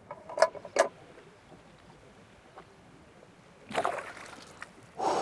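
Two sharp clicks, then water splashing twice, about four seconds in and again near the end.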